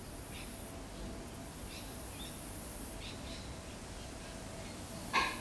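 Yellow-tailed black-cockatoo giving faint, short calls every second or so. A single much louder, short sharp call comes near the end.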